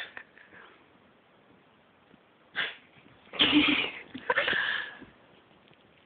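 Miniature schnauzer puppy making short breathy, noisy sounds while tugging at a scarf in tug of war: one brief sound about two and a half seconds in, then two longer, louder ones close together.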